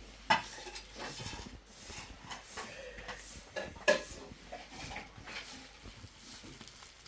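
Scattered clinks and knocks of objects being handled, with two sharp knocks: one about a third of a second in and one about four seconds in.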